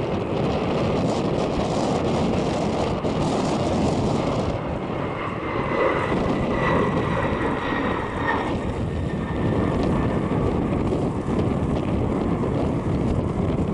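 Boeing 747-400's four Pratt & Whitney PW4056 turbofans at takeoff thrust as the jet lifts off and climbs away: a steady, loud rumble with a faint high whine that comes in about five seconds in and fades by about nine seconds. Wind buffets the microphone.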